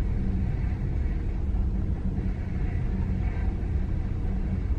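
A steady low rumble, with faint muffled sounds about two to three seconds in.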